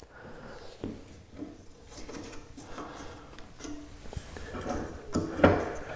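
Knocks, clunks and scrapes from the top dust-extraction section of a Lagler Trio floor sander being loosened and slid out by hand. There are scattered small knocks, and one louder, brief noise near the end.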